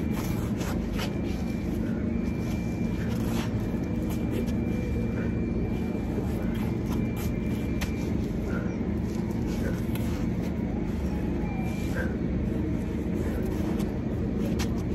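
Steady low rumble of city traffic, with scattered light taps and clicks over it.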